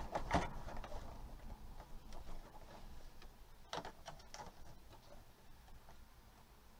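Faint handling of a cardboard doll box with a clear plastic window: light rustling and a few sharp clicks, the clearest cluster about four seconds in, growing quieter toward the end.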